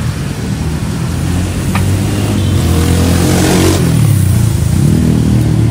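Motor vehicle engine running close by on the street, its hum growing louder, with a rushing noise about halfway through as it passes.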